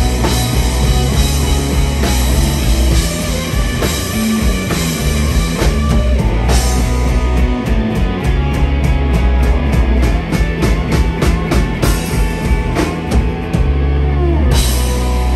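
Live rock band playing: electric guitars, bass and a drum kit. About six seconds in, the sound thins to a sparser stretch kept by regular, evenly spaced drum hits. Near the end, the full band comes back in.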